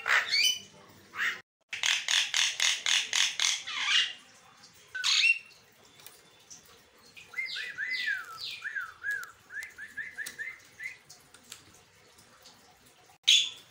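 Javan myna calling: harsh, rasping squawks, including a fast run of about five a second, then a string of downward-sliding whistled notes that runs into a quick chatter of short notes, and one more harsh squawk near the end.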